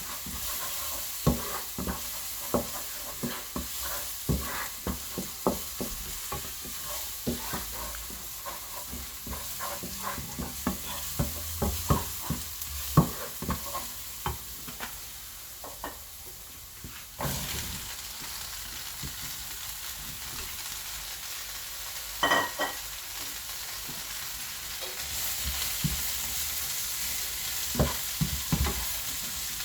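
Food sizzling in a hot pan as it is stir-fried, with a utensil knocking and scraping against the pan many times over the first half. After that the knocks come only now and then, with a few louder clatters near the end.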